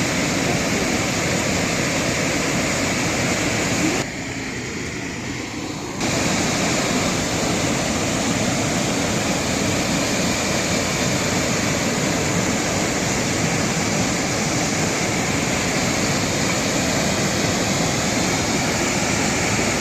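Steady rush of a waterfall, an even wash of water noise. It drops noticeably quieter for about two seconds some four seconds in, then returns.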